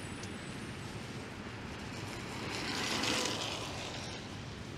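Street traffic on wet roads. A vehicle passes, its tyre hiss swelling to a peak about three seconds in and then fading.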